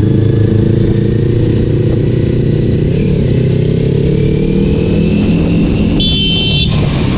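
Sport motorcycle engine running steadily at low road speed, riding behind a truck. Near the end, a high beeping tone comes in briefly.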